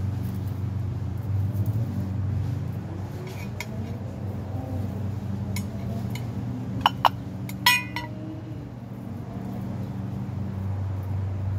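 Metal char cloth tin clinking: two sharp taps about seven seconds in, then a quick ringing rattle just after, over a steady low hum.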